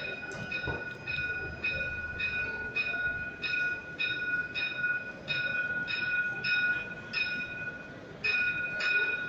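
A tram's warning bell ringing over and over, about two strokes a second, with a short break a little before the end, as the tram pulls into the stop.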